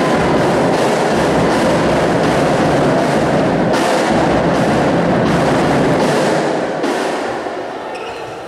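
Loud, dense cheering with rhythmic beating from the stands as the set ends, dying down after about six and a half seconds.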